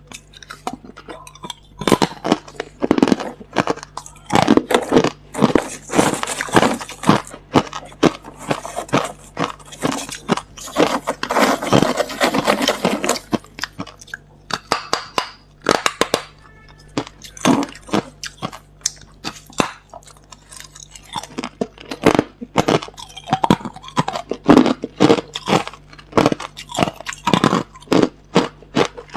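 Hard, clear crushed ice being bitten and chewed close to the microphone: a dense run of sharp, irregular crunches and cracks, with thicker stretches of grinding a few seconds in and again around twelve seconds in.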